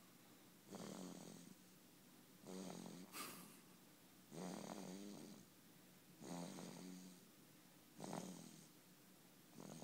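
Baby snoring softly in sleep, a short pitched snore on each breath, about one every two seconds.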